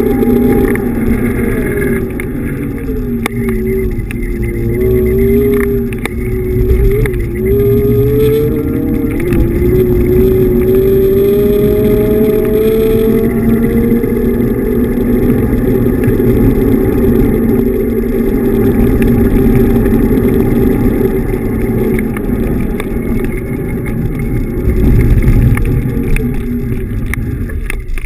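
Xiaomi M365 Pro electric scooter riding along a street, with heavy wind rumble on the microphone and road noise. A whine, most likely the hub motor, falls in pitch over the first few seconds as the scooter slows, then rises steadily as it speeds up again.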